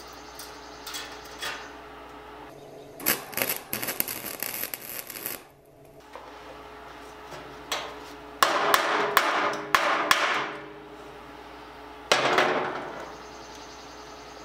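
A few seconds of wire-feed welder crackle as a tack weld is laid on pitted sheet steel. Then a quick run of hammer blows on the still-hot tack, with the steel sheet ringing, peening it down like a rivet. One more ringing blow comes near the end.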